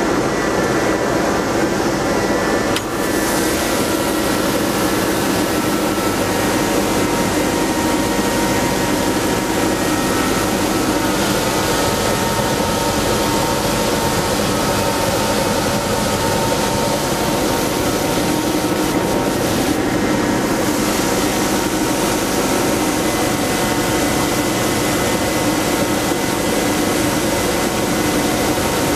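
Ice edger running steadily, its motor and spinning cutter blade giving a constant machine drone with several steady tones while cutting at deep depth into built-up ice. A brief dip in loudness comes about three seconds in.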